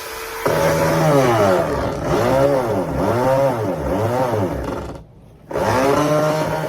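Gas chainsaw engine revving up and down over and over, with a short cut-out about five seconds in before it picks up again at a steady speed.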